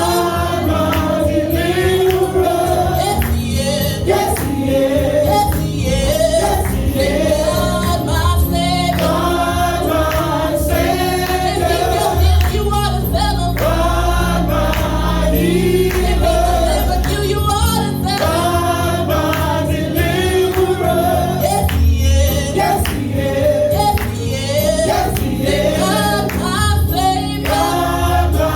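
Gospel choir singing with a band: several voices over bass and a steady beat.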